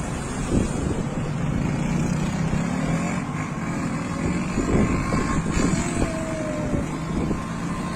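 Steady road-traffic and vehicle engine noise, with wind on the microphone.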